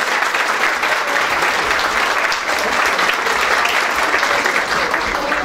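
Room full of seated dinner guests applauding: dense, steady clapping of many hands.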